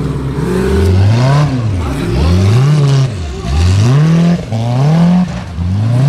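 Formula Offroad buggy's engine revved hard again and again: about five rising surges, one every second or so, each dropping back before the next, as the spinning wheels dig into a steep loose dirt climb.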